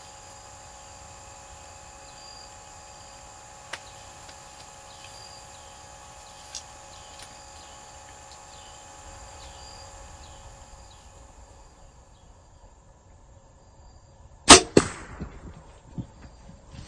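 Steady insect chorus that thins out, then, about two-thirds of the way in, a compound bow fires at a doe: one loud sharp crack of the string release and the arrow striking, followed by several fainter knocks and rustles as the deer bolts.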